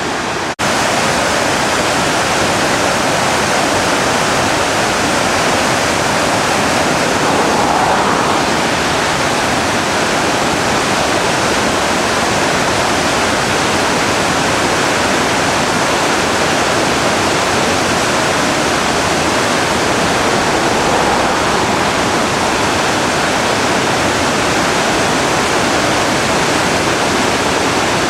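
River in heavy flood: loud, steady rushing of fast, high water, with a brief break about half a second in.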